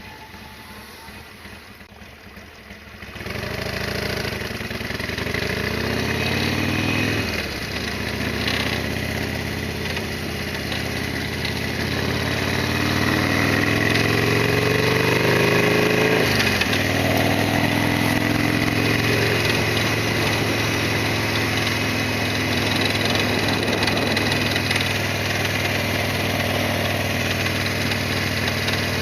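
Harley-Davidson XL1200R Sportster's air-cooled V-twin engine, quiet at first, then pulling away at about three seconds. It climbs in pitch through the gears, with a shift about 7.5 s in and another about 16.5 s in, then runs at a steady cruise.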